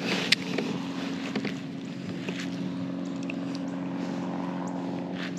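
Small boat motor running with a steady low hum, with a few light clicks and knocks over it.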